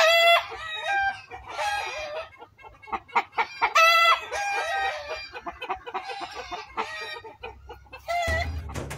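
Chickens clucking and calling over and over in short, pitched calls. Music comes in near the end.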